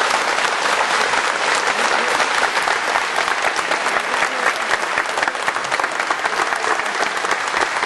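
A large audience applauding, many hands clapping at once in a dense, steady patter.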